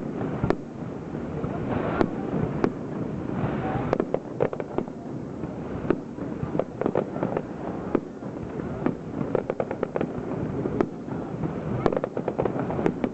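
Aerial fireworks shells bursting in a display, a run of sharp bangs and crackle. The bursts come singly at first, then in quick dense clusters from about four seconds in and again near the end.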